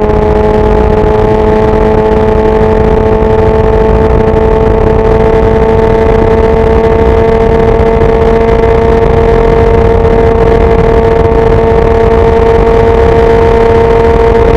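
Kawasaki Ninja 1000SX's inline-four engine and exhaust pulling hard in sixth gear at high speed: a steady high-pitched drone that climbs slowly in pitch as the bike gathers speed.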